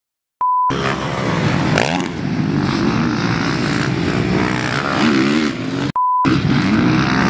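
A brief 1 kHz test-tone beep, then a motocross bike's engine running hard and revving, its pitch dipping and climbing again near five seconds. At about six seconds it cuts to a second short test-tone beep over colour bars, and the engine sound comes back.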